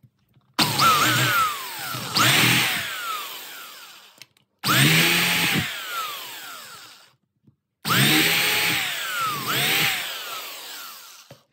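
Electric drill with a 6 mm masonry bit boring out the screw holes in a thermostat's plastic backplate, so the screw heads can sit flush. It runs in three bursts of a few seconds each, and its pitch rises and falls within each burst.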